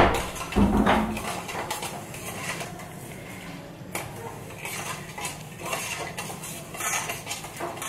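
Steel ladle stirring and scraping in a stainless steel kadhai of sugar and water heating into syrup, with irregular metal-on-metal clinks and scrapes.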